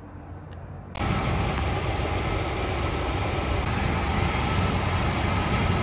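Classic Chevy pickup's engine idling with a low rumble, then about a second in a much louder steady mechanical noise sets in and keeps on.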